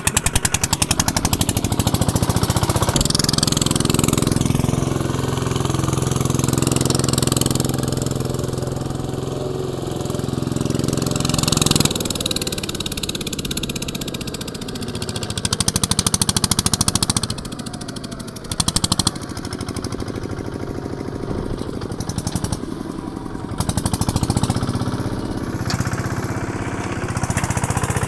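Kubota RT140 single-cylinder diesel engine on a homemade two-wheel-drive tractor, running under load with a fast, even beat of firing strokes. Its speed shifts a few times, swelling louder briefly about two-thirds of the way through.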